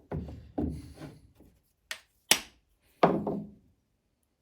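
Hand tools and small engine parts knocking and clunking on a workbench while a small engine's carburetor is taken apart: several separate knocks at uneven gaps, the sharpest two past the middle.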